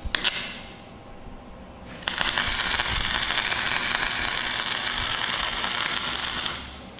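Wire-feed welder arc crackling. First a brief tack right at the start, then about two seconds later a steady weld of about four and a half seconds that stops suddenly. The nut is being welded onto a broken-off bolt.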